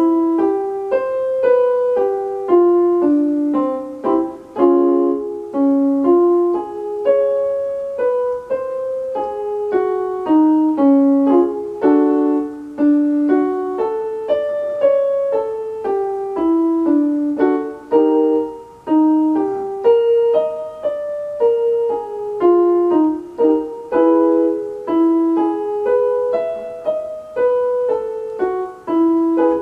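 Portable electronic keyboard played with a piano voice: a simple melody of single notes, sometimes two together, about two a second in the middle register.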